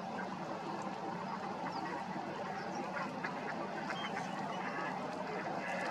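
Flock of ducks, mallards among them, quacking and calling together as a steady mass of overlapping calls.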